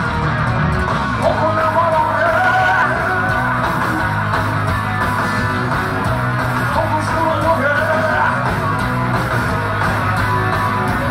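Live rock band playing loud, with electric guitar, bass and drums under a sung, partly shouted lead vocal, heard from among the audience in a club room.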